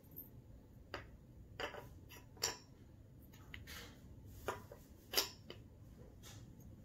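Wooden shape-sorter pieces knocking and clacking as a toddler handles them and fits them onto the board's wooden pegs: a scatter of light knocks, about seven in all, the loudest a little after five seconds in.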